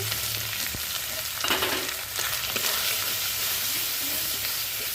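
Onion, green chilli and freshly added ginger, cumin, garlic and onion pastes sizzling in hot oil in a kadai, with a steady hiss and a couple of brief scrapes of stirring about one and a half and two seconds in.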